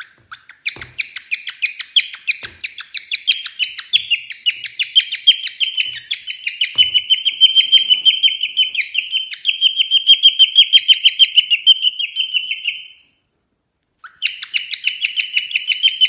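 Cockatiel chirping in a fast, even series of short squeaky notes, about five a second. It stops abruptly about 13 seconds in and starts again a second later.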